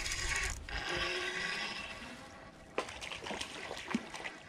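Hooked crappie splashing at the water's surface as it is reeled in, with a sharp splash a little before three seconds in and a few smaller splashes after it.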